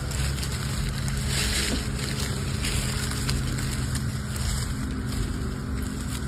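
A motor running steadily, a low even drone with a constant pitch, under a hiss of wind or air.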